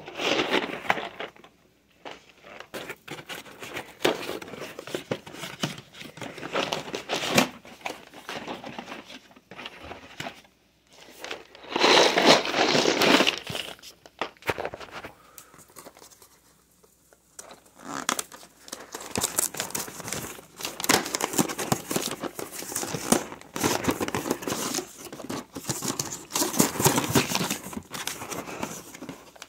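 Brown paper grocery bags crinkling and rustling as they are handled, with scattered clicks and knocks, in irregular spells; loudest about twelve seconds in.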